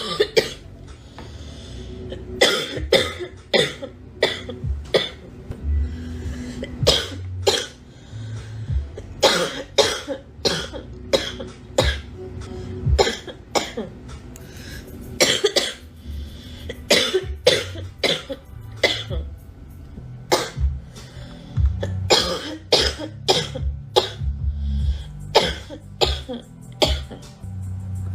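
A girl coughing repeatedly: dozens of short coughs throughout, often in quick runs of two to four, with music underneath.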